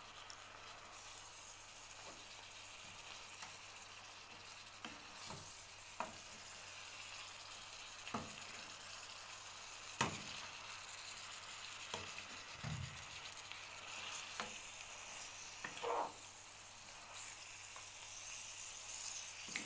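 Seafood spaghetti sizzling steadily in a frying pan as it is tossed and stirred with a spatula. The sizzle is broken every few seconds by a short clack of the spatula against the pan.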